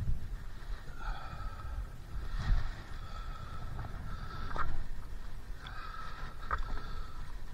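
Paddle strokes in water from a stand-up paddleboard, a splash about every two seconds, over a low rumble of wind on the microphone.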